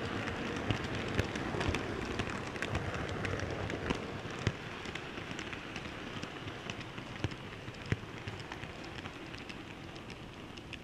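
Model railway wagon rolling along the track, heard from on board: a steady rattling rumble of small metal wheels on the rails with irregular sharp clicks over the rail joints, slowly getting quieter toward the end.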